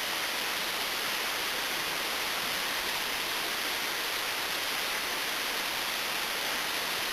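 Steady, even hiss of background noise with no distinct knocks or clicks.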